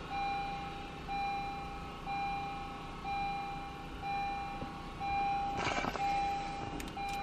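Honda Accord's in-car warning chime beeping at a single steady pitch, one long beep about every second. A short rustling noise comes about three-quarters of the way through.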